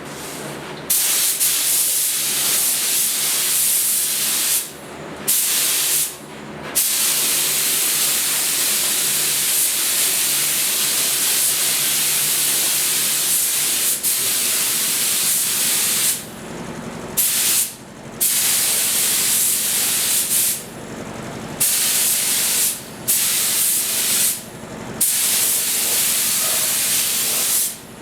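Compressed-air spray gun hissing in long triggered bursts, with about eight short breaks where the trigger is released.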